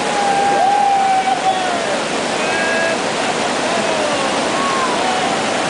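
Steady rush of river whitewater rapids. Over it come a few drawn-out calls from people's voices, mostly in the first three seconds.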